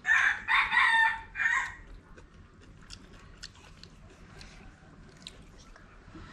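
A rooster crows once, loud, for just under two seconds at the start; after that only a few faint clicks.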